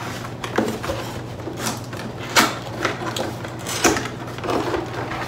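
Cardboard box being handled and its flaps pulled open: a series of short knocks and scraping rustles of cardboard, about six in all.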